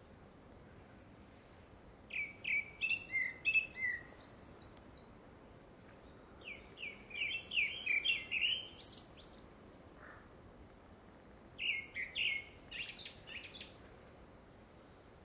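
Gray-backed thrush singing: three phrases of quick, clear whistled notes, each a couple of seconds long, with short pauses between. The uploader takes it for courtship song, seemingly ahead of a second brood.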